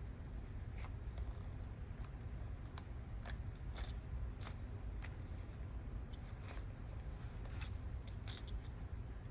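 A plastic hydration-pack water bladder and its drinking hose being handled and pulled out of a mesh running vest: scattered light clicks, taps and plastic scrapes over a steady low hum.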